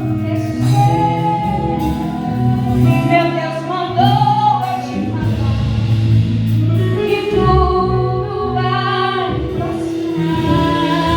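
Gospel song with a woman singing in Portuguese over instrumental accompaniment, held sung notes over sustained low bass and keyboard-like chords.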